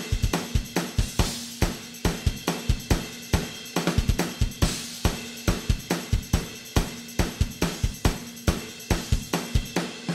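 Drum kit playing a steady rock beat on kick, snare, hi-hat and cymbals, about four hits a second, with no other instruments.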